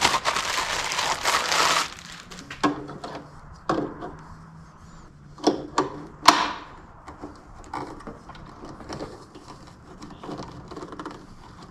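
Handling noise from working around the thickness planer: a scraping rustle for about two seconds, then a few scattered knocks and clicks.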